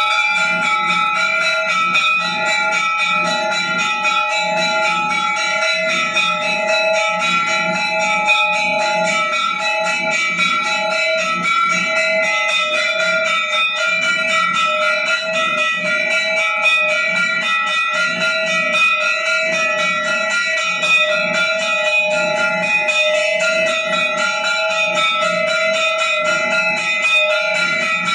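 Hindu temple bells ringing rapidly and continuously for the aarti, many strikes a second blending into one steady, loud clang, with a fainter low pulsing beneath.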